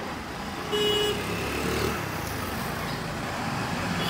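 Street traffic passing close by, with a short vehicle horn toot about a second in.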